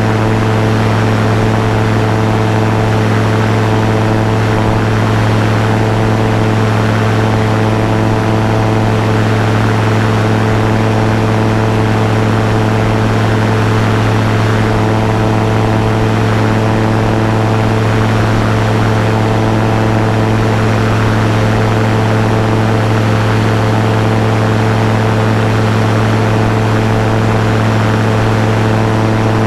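Ranger gyrocopter's engine and pusher propeller running steadily in flight: a constant low hum with overtones, over a rush of air in the open cockpit.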